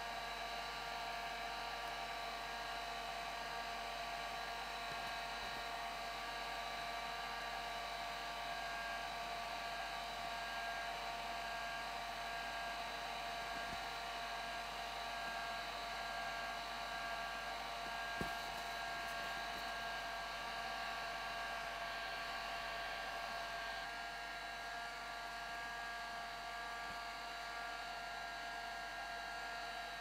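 Electric heat gun running steadily, a rush of blown air with a fan whine of several steady tones, as it softens a foam strip being pressed on as an edge. There is one faint click about eighteen seconds in, and the sound drops a little in level some six seconds before the end.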